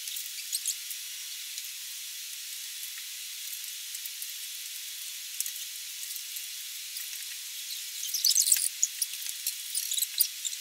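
Steady hiss with scattered small clicks and crackles, which bunch up into a burst about eight to nine seconds in. There is no low sound at all.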